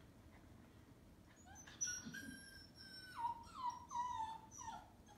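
Puppy whining while held still, unhappy about the restraint: a long high whine starting a little under two seconds in, then a string of shorter whines that drop in pitch.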